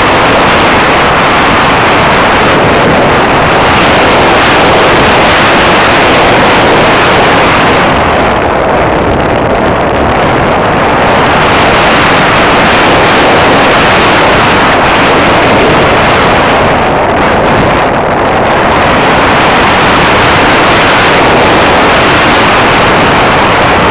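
Loud, steady rush of airflow and propeller noise on an aircraft-mounted camera's microphone in flight. It eases briefly twice, about a third of the way in and again about three quarters through.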